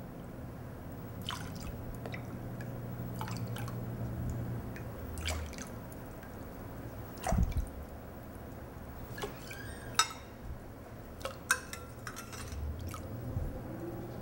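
Water dripping and splashing as it is ladled from one glass mixing bowl into another, with scattered short clicks and a few louder splashes about halfway through and again near the end.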